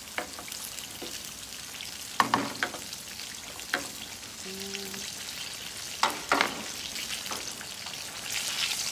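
Oil sizzling steadily in a wok as sliced onion and ginger fry until crisp. A wooden spatula stirs and knocks against the pan several times, loudest about two seconds and six seconds in.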